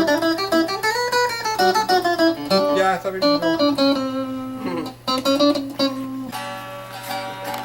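Guitar music: a melody of quick plucked notes, with a note that slides up and back down about a second in and another that slides down near the five-second mark.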